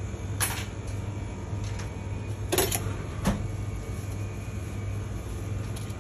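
Steady low hum of food-stall equipment, with a few short sharp clicks and knocks of utensils while a boiled egg is broken up with a fork on a chapati: one about half a second in and a cluster around three seconds in.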